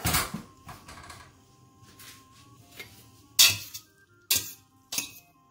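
A metal spaghetti server knocking against a stainless-steel pot as cooked greens are scooped out: a clatter at the start, then four sharp clinks with a short ring, the loudest about three and a half seconds in.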